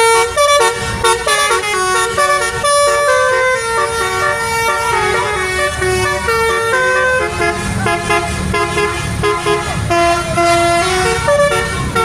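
Indonesian bus telolet horn playing a quick melody of short, stepped notes, several pitches often sounding at once, over a low rumble.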